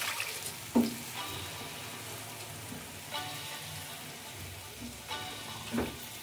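Grated carrots with freshly added milk sizzling in a pan while a wooden spatula stirs them, with two sharper knocks or scrapes of the spatula against the pan, about a second in and near the end.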